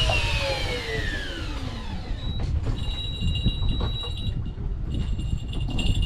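Electric fishing reel winding in line, its motor whine falling in pitch and fading out over the first two seconds as it slows to a stop. A steady low rumble runs underneath, and faint steady high tones come in about halfway.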